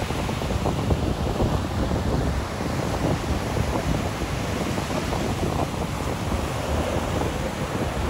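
Rough surf breaking in the shallows: a continuous wash of waves with a deep rumble. Wind buffets the microphone throughout.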